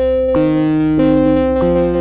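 Modular synthesizer music: sustained bright pitched tones that step to a new note about every two-thirds of a second.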